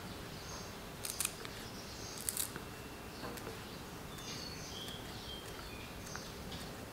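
Kitchen scissors snipping a coriander root into pieces: a few short, sharp snips, the clearest about one and two seconds in, with fainter ones after.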